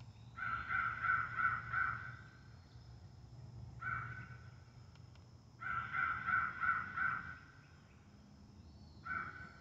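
Western Rivers electronic crow call playing a recorded crow-calling sequence. A run of about five quick caws is followed by a single caw, then another run of caws and another single caw. Each call sequence is short.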